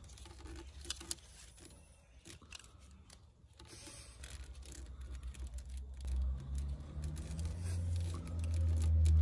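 Small clicks and rattles of a plastic ECU wiring connector and a metal probe pin handled in gloved hands. From about six seconds in, a low drone builds up and grows louder than the clicks.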